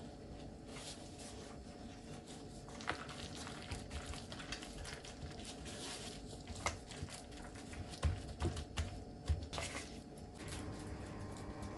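Soft rustling and squishing as limp, thawed cabbage leaves are folded by gloved hands around minced-meat filling on a wooden cutting board, with scattered light clicks and a few louder soft thumps about eight to nine seconds in. A faint steady hum runs underneath.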